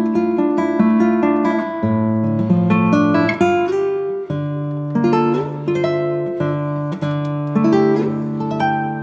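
Background music: a plucked acoustic string instrument picking a steady run of notes over bass notes that change every couple of seconds.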